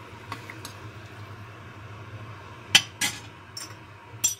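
Metal ladle clinking against a stainless steel soup pot and a plate while stirring: a few faint taps early, then four sharp metallic clinks in the second half, the first the loudest. A low steady hum runs underneath.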